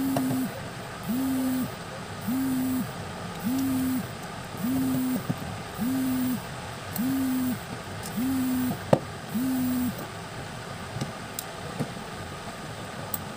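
A low buzzing tone pulsing on and off about once every 1.2 seconds, each pulse about half a second long with a slight rise at the start and drop at the end, about ten times before it stops. A single sharp click comes a little before it ends.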